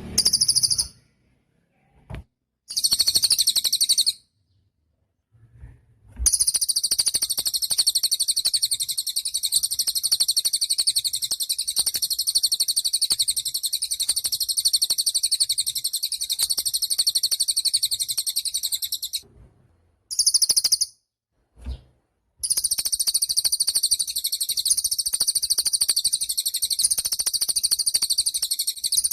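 Cililin bird singing in long, very rapid, high-pitched trills, the longest lasting about thirteen seconds, broken by a few short pauses.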